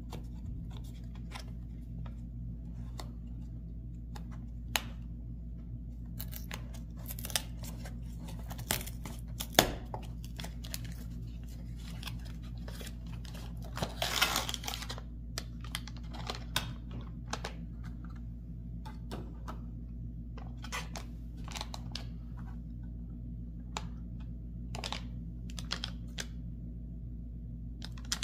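Cardboard film box being handled and opened, with scattered taps, scrapes and rustles; about 14 seconds in, a longer rustling scrape as the foil-wrapped Instax Mini film pack is slid out of the box. A steady low hum runs underneath.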